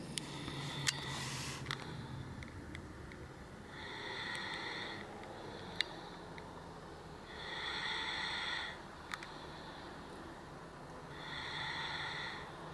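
Snoring: three drawn-out, high-pitched snoring breaths, about three and a half seconds apart, with a couple of faint clicks between them.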